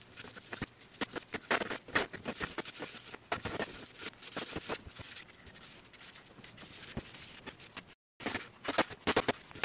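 Gloved hand spreading and rubbing a gritty salt, flour and vinegar paste over the copper shell of an antique fire extinguisher: irregular soft smearing and rubbing noises, several a second. The sound cuts out briefly near the end.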